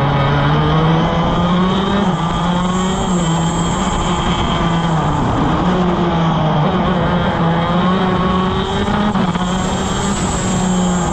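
175cc two-stroke shifter kart engine at racing speed, pulling hard out of a slow corner and accelerating, its pitch climbing and briefly dipping a few times as it shifts up through the gears.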